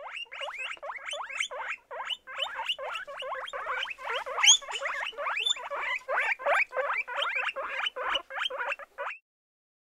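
Guinea pigs wheeking: a rapid run of short high squeaks, each rising in pitch, about three a second, with one louder squeak near the middle. It stops abruptly about nine seconds in.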